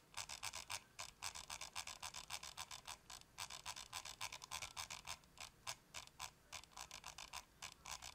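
Scroll wheel of a Zowie U2 gaming mouse being rolled through its notched steps: runs of quick, clear clicks, several a second, with brief gaps between the runs.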